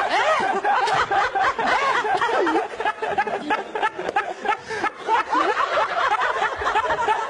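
People laughing hard: a man's hearty, open-mouthed laugh with several others laughing along.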